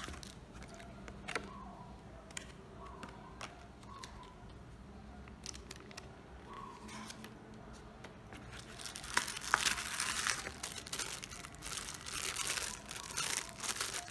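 Crinkling of plastic and paper packaging being handled: scattered light rustles and taps at first, then steady crinkling from about nine seconds in, as a small plastic bag of spare drone parts is handled.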